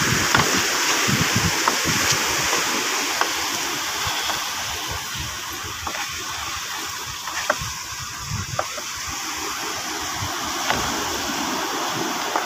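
Steady rushing of wind and surf at the shoreline, with gusts buffeting the microphone and a few light clicks.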